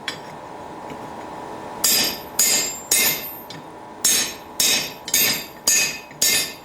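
Hand hammer striking a blacksmith's rounding spring swage as a bar is worked round in it: after about two quiet seconds, a run of sharp, ringing steel-on-steel blows about two a second, with a short pause after the third.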